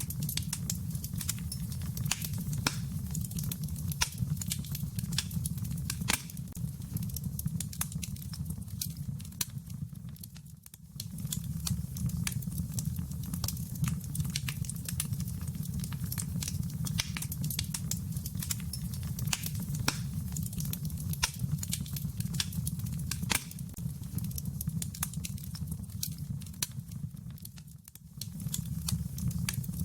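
Wood fire crackling in a fireplace: a steady low rumble under many scattered sharp pops and snaps. The sound briefly dips down twice, about ten seconds in and shortly before the end.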